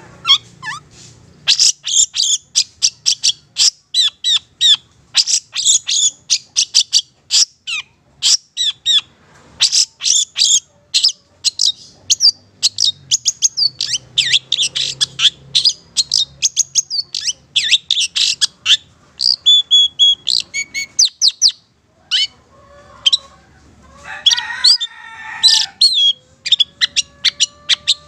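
Long-tailed shrike (cendet, Madura type) singing a fast, chattering song of short, sharp, high notes in quick succession. Toward the end it breaks into a stretch of lower, drawn-out, squawky notes before the rapid chatter resumes.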